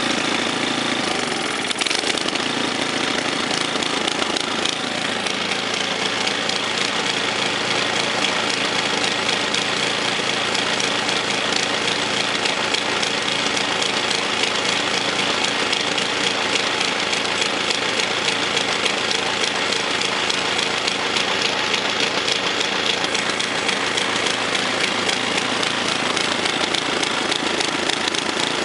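Briggs & Stratton 250cc single-cylinder engine on a Craftsman 22-inch snow thrower running steadily after an engine and carburetor rebuild. Its note shifts about two seconds in, then holds even. The uploader finds it runs smoother with the choke slightly on.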